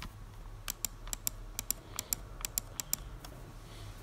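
A quick, irregular run of about a dozen sharp clicks over roughly two seconds, over a low steady hum.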